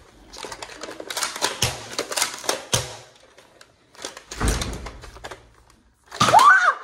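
Plastic clicks and clacks of a Nerf foam-dart blaster being handled and loaded, with a heavier thump about halfway through. Near the end comes a short, loud sound whose pitch rises and falls.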